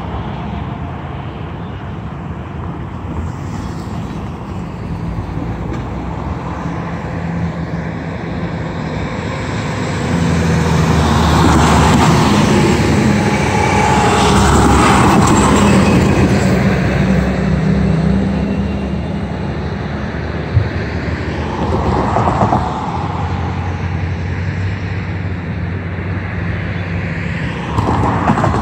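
Diesel freight locomotive idling with a steady low hum while road vehicles pass close by. The biggest pass swells up in the middle, with shorter passes later and one brief click in between.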